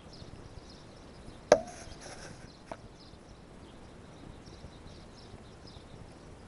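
A gorilla handling the camera at close range: one sharp knock about a second and a half in, followed by a short scratching, then a fainter tap about a second later, over faint rustling.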